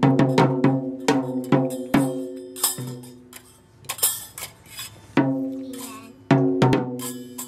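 Small children's hand drums struck with mallets: a run of quick ringing hits, a pause, then another run near the end. Small hand cymbals are clashed a couple of times in the middle.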